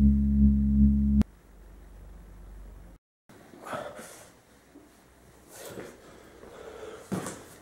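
A loud, low droning hum, pulsing about twice a second, cuts off abruptly about a second in: a horror-film sound-design drone. After it, quiet room tone with a few faint rustles.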